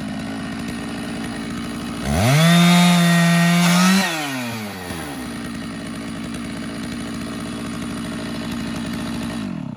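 Stihl 660 Magnum chainsaw on an Alaskan chainsaw mill running at low speed, revving up to a high steady pitch for about two seconds, then dropping back and shutting off near the end.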